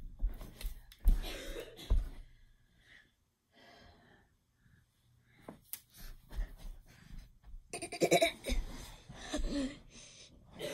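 Indistinct human voice sounds and breaths close to the microphone, with a few low thumps. There is a quiet lull about three seconds in, and the voice sounds return about eight seconds in.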